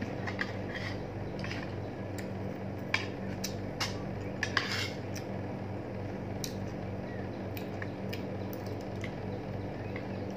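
Metal fork and spoon clinking and scraping against a plate while eating, with a handful of sharp clicks bunched around the middle. A steady low hum runs underneath.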